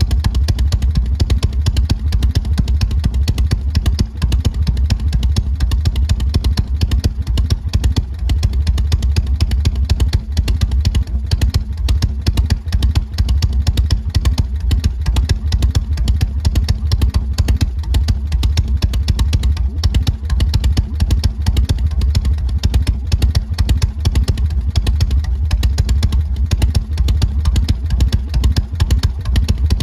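Harley-Davidson Shovelhead 45-degree V-twin running steadily at a constant engine speed, its exhaust a continuous, deep, rapid pulsing.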